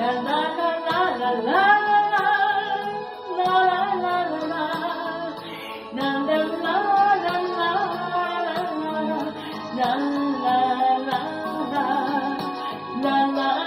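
A slow song: a voice singing a melody over a karaoke backing track.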